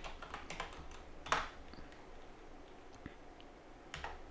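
A few separate keystrokes on a computer keyboard, fairly quiet, with the sharpest click a little over a second in and another near the end.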